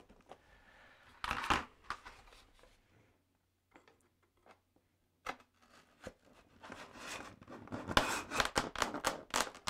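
Rustling, scraping and light clicks of a foam model-airplane wing being handled and shifted on its fuselage, quiet for a couple of seconds in the middle and busiest near the end.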